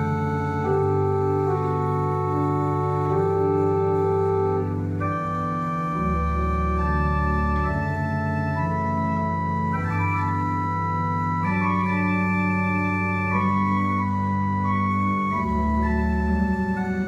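1975 Ruffatti pipe organ playing slow, sustained chords that shift every few seconds over long-held pedal bass notes.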